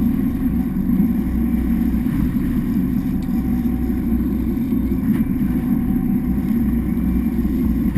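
A boat's engine running steadily with a low, even rumble.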